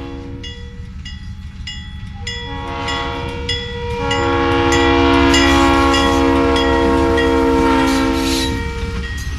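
Diesel locomotive air horn sounding a chord of several tones. One blast ends about half a second in, a brief toot follows, then a long blast swells loud as the locomotive passes close by and cuts off near the end. Regular metallic dings about twice a second and the low rumble of the passing train run beneath it.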